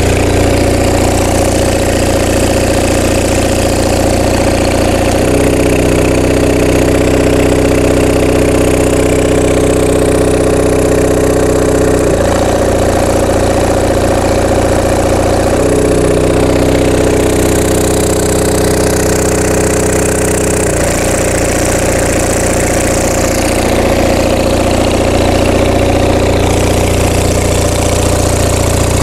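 Onan MDJE diesel generator set running steadily; its engine note changes twice, each time for about five to seven seconds, as electrical load is stepped on and off.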